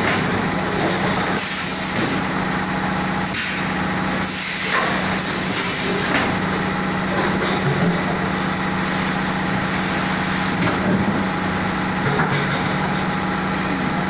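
A 20-litre water-jar washing machine running steadily: a constant motor hum under an even hiss, with a few faint knocks.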